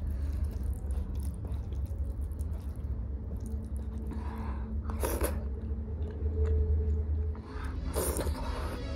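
Close-up eating sounds: a person chewing soft rice and dal while her fingers mix the wet rice and dal in a steel plate. A fresh mouthful is taken near the end. A steady low hum runs underneath.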